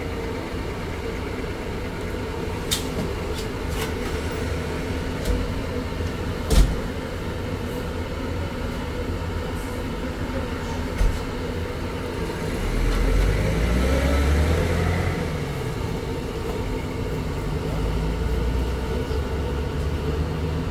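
Street traffic noise: a steady low hum with a few sharp knocks, the loudest about six seconds in. About two-thirds of the way through, a vehicle passes, its engine note rising and then falling as it goes by.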